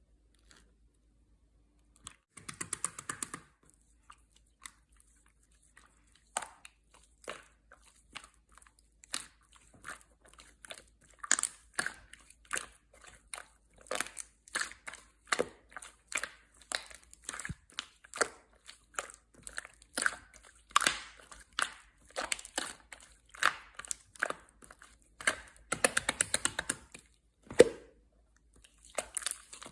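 Slime being squeezed, pressed and poked by hand, making a quick run of wet crackles, pops and clicks that starts about two seconds in and keeps going.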